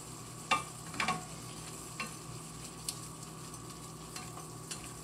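Ground turkey and salsa frying in a skillet: a steady sizzle, with a few sharp clicks.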